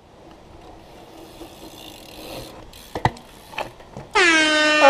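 A BMX bike hitting and grinding along a waxed metal bench: a couple of sharp knocks about three seconds in, then near the end a loud, steady metallic squeal from the metal sliding on metal.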